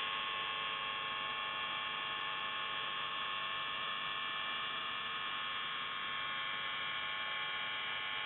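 The buzz tone of the Russian shortwave station S28, 'The Buzzer', on 4625 kHz, heard through a receiver in upper sideband: a harsh, steady buzz with many overtones that runs without a break.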